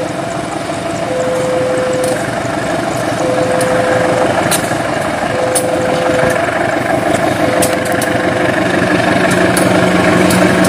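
Diesel-electric locomotive running as it approaches with its passenger train, its engine and the rolling wheels growing louder, with sharp clicks from the wheels over the track. A single-pitched beep lasting about a second repeats roughly every two seconds and stops a little over two-thirds of the way through.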